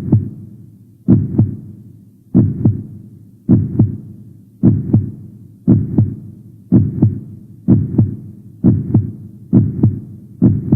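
Heartbeat sound effect: paired low lub-dub thumps about once a second, speeding up slightly.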